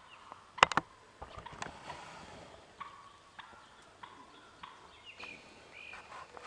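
Camera handling knocks and clicks, the loudest a sharp clack under a second in, then rustling movement through tall grass. From about three seconds in there are a few short faint bird calls.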